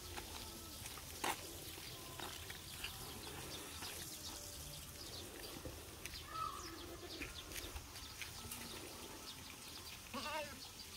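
A goat bleats once, briefly and quaveringly, near the end, over faint outdoor background with scattered light clicks.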